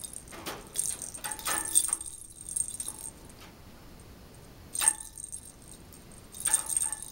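Small bell in a hanging plastic ball cage toy jingling and rattling as a peach-faced lovebird knocks it about, in three bursts: a long one over the first few seconds, a short one about five seconds in, and another near the end.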